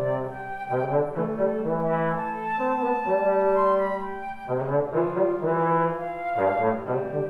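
Live chamber arrangement for flutes and trombone: the trombone plays low held notes under the flute melody, the notes changing about every second.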